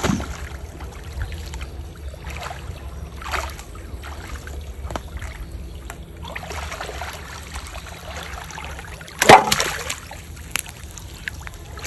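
Muddy water sloshing and splashing as a person wades and gropes chest-deep through it, with a loud sudden splash about nine seconds in.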